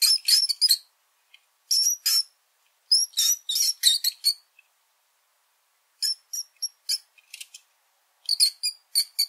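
Small rodent squeaking: clusters of short, high-pitched squeaks in quick runs, separated by pauses, the longest pause coming about halfway through.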